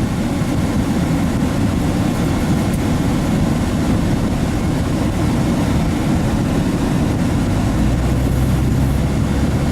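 Steady road and engine rumble heard inside a pickup truck cab while driving. About seven and a half seconds in, a low, even engine drone comes up and holds.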